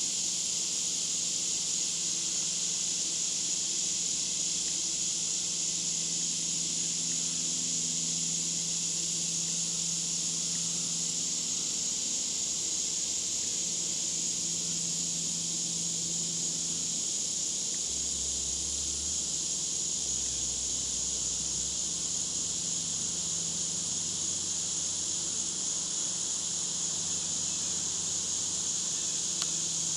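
Steady, high-pitched drone of a chorus of insects, an even shrill hiss that does not change.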